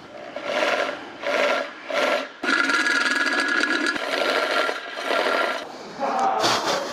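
Electric drill boring a drain hole into a BMW transfer case housing. It runs in three short bursts, then steadily for about three seconds.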